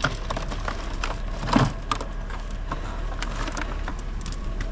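Curbside junk being rummaged and handled: a run of small clicks and knocks from hard items knocking together, with one louder thump about one and a half seconds in.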